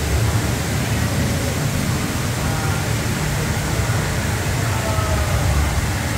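Steady rush of a tall indoor waterfall pouring down a planted wall, an even roar heaviest in the low end.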